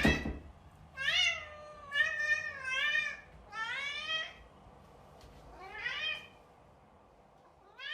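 Cat meowing repeatedly: about five drawn-out meows, each rising and then falling in pitch, with short pauses between them.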